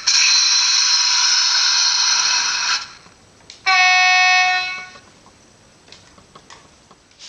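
Märklin Taurus model locomotive's sound decoder sounding its horn through its small onboard speaker: a loud, harsh blast lasting almost three seconds, then about a second later a shorter, clear single-pitched horn note. Faint clicks follow.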